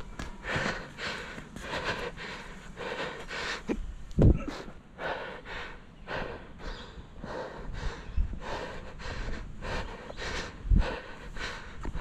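Footsteps crunching along a dirt or gravel track at a walking pace, about two to three steps a second, with a louder low thump about four seconds in.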